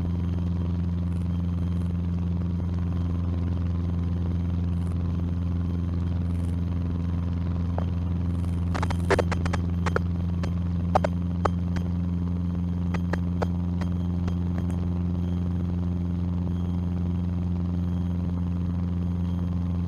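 Cessna 150's four-cylinder Continental O-200 engine droning steadily in the cabin during the climb. From about nine to thirteen seconds in, a cluster of sharp clicks and rattles comes through, as the cabin door pops open.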